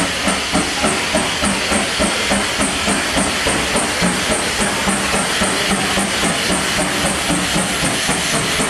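FS Class 740 steam locomotive 740.297 running past, its exhaust chuffing in a steady rhythm of about three to four beats a second over a hiss of steam.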